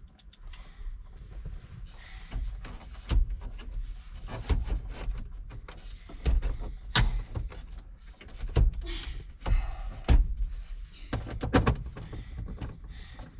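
Irregular knocks, clunks and light rattles of dashboard and instrument-cluster parts being handled and fitted back into place by hand, with a few short scrapes; the loudest clunks come about 3, 7 and 10 seconds in.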